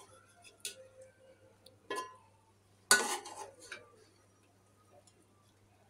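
Long-handled metal slotted spoon clinking and scraping against a metal cooking pot as cooked biryani rice is turned over: a few separate clinks, the loudest about three seconds in, with a short ring after it.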